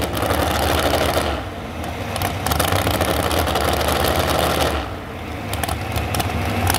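Modified 4x4 pulling truck's engine idling loudly and unevenly, waiting at the line hooked to the sled. Its sound sags twice, about a second in and again near the end.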